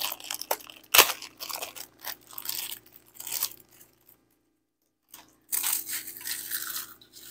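Crackers being crushed by hand and crumbled from their sleeve: irregular crunching with crinkling of the wrapper, a sharp crack about a second in and a short break a little past halfway.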